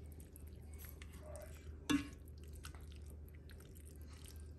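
Slotted spatula stirring thick chicken and rice soup in an enameled Dutch oven: soft wet squishing with small scattered clicks, and one louder tap about two seconds in.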